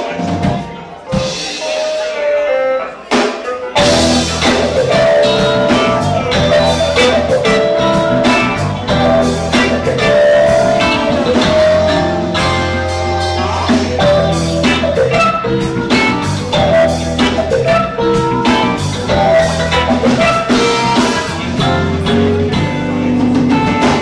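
Live rock band playing: electric guitars over bass and drum kit. The first few seconds are thinner, with the bass and drums coming in about four seconds in.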